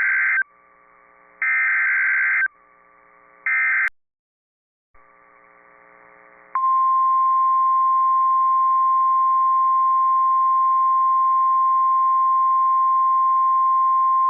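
NOAA Weather Radio SAME alert header: three short bursts of buzzing digital data, then after a brief silence the steady 1050 Hz weather-radio warning alarm tone, starting about halfway through. Together they signal that a new warning is about to be broadcast.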